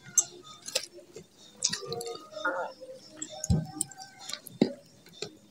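Irregular small clicks and crackles of fingers picking through banana leaves and grilled rice while eating by hand, with a dull thump about three and a half seconds in.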